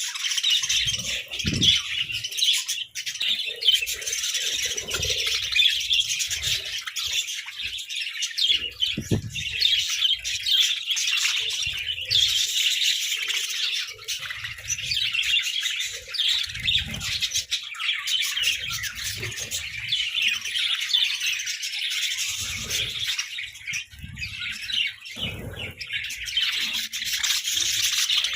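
A group of budgerigars chirping and chattering continuously, many overlapping high calls, with scattered soft low thumps.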